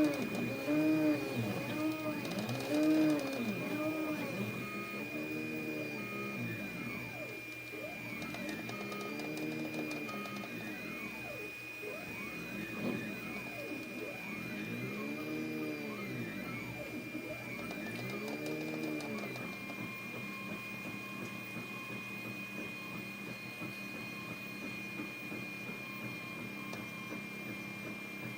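Anet A8 3D printer at work: its stepper motors whine in pitches that rise and fall again and again as the print head speeds up and slows down, over a steady high tone. The sweeping motor whine stops about two-thirds of the way through, leaving the steady tone.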